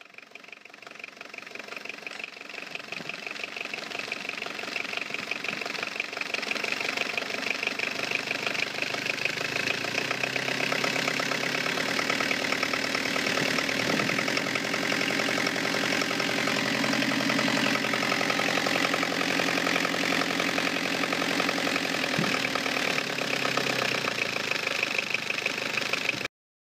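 XUD9 1.9 turbo-diesel engine idling, heard close up at its Bosch injection pump, growing louder over the first few seconds and then holding steady before cutting off suddenly near the end.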